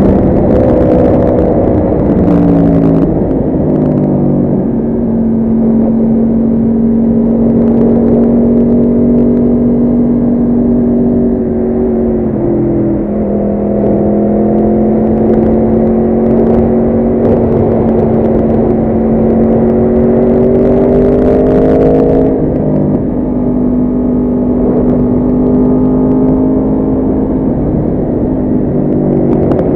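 Yamaha R1 motorcycle's inline-four engine running hard. Its pitch steps down a few times near the start, holds, climbs slowly, then drops sharply about 22 seconds in before holding again.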